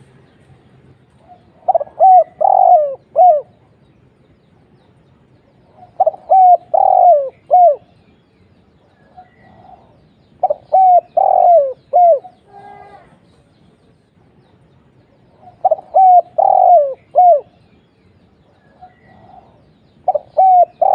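Spotted dove (tekukur) cooing: four phrases of several short, falling coos, repeated about every four and a half seconds, with a fifth phrase starting at the very end.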